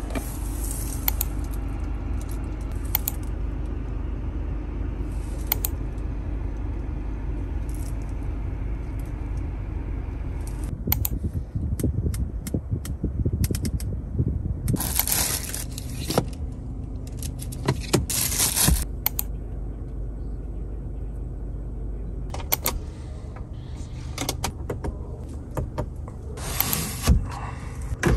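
Scattered clicks and short rustling bursts from hands handling a car's interior trim and controls, over a steady low hum.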